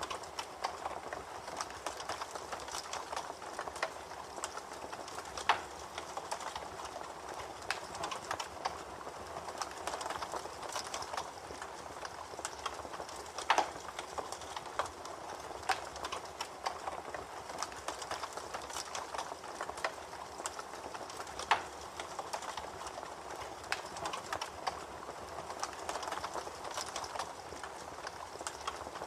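Campfire crackling steadily: a dense run of small snaps over a soft hiss, with three louder pops along the way.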